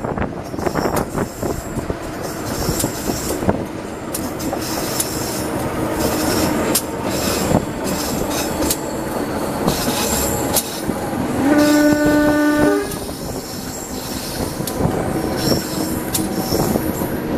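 A train running past, its wheels clattering over rail joints with a high intermittent squeal. About two-thirds of the way through, the CC 203 diesel-electric locomotive's horn sounds once, one held note lasting just over a second.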